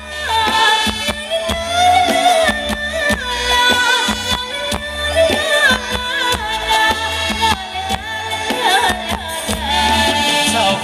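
Live band playing Thai ramwong dance music with a steady beat, horns and a singer.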